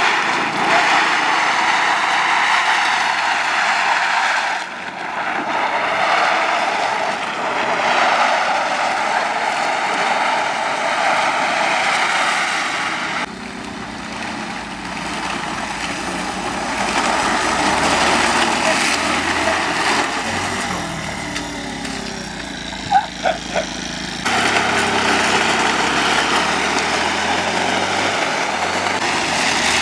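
Moped engine running under way, mixed with a steady rushing noise of wind and road. The sound changes abruptly a few times.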